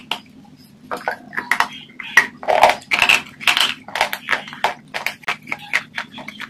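Close-miked crunching as a crisp white bar of food is bitten and chewed. From about a second in comes a rapid, uneven run of sharp crunches, several a second.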